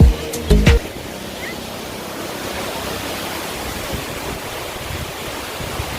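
A music track with a beat breaks off under a second in, leaving a steady, even rushing noise.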